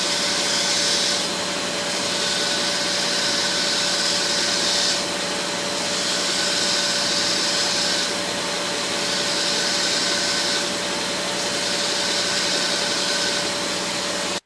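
Small belt grinder running while a 2.4 mm tungsten TIG electrode is ground to a point on the belt. It makes a steady motor whir with a steady hum, and a higher grinding hiss that swells and eases several times as the electrode is worked.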